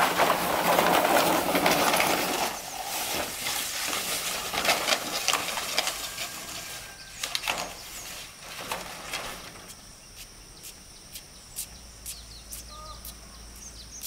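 Bundle of long bamboo poles dragged scraping over dirt and concrete, then knocking and clattering against each other as they are set down. Faint bird chirps near the end.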